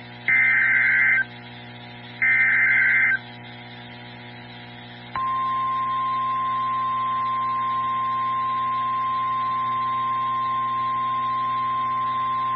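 NOAA Weather Radio alert activation. Two roughly one-second bursts of warbling SAME header data, the last two of the three header repeats, are followed about five seconds in by the steady single-pitch warning alarm tone, which holds on. It signals that a new warning is being broadcast, here a severe thunderstorm warning.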